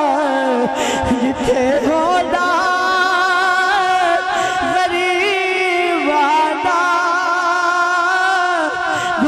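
A man singing a devotional verse in long, drawn-out held notes with a wavering pitch, amplified through a microphone.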